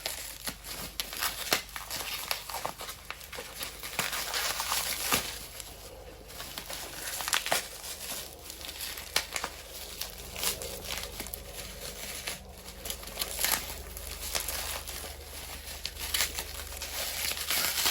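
Plastic bubble wrap crinkling and rustling as it is worked loose from around a radio, with many sharp crackles; the wrap is tight.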